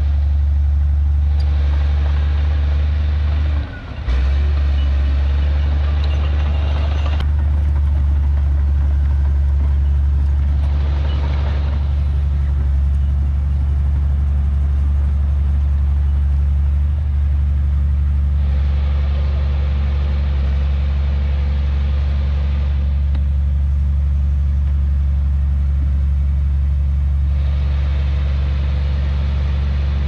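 Heavy diesel engine of earthmoving machinery running steadily with a deep drone. Stretches of higher, rougher noise come and go about four times over it, and the sound drops out briefly about four seconds in.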